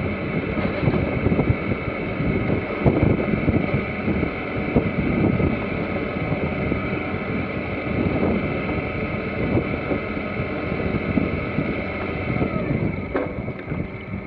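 Wind buffeting the microphone and water rushing along the hull of a J/111 sailboat under way, a continuous irregular rush strongest in the low range.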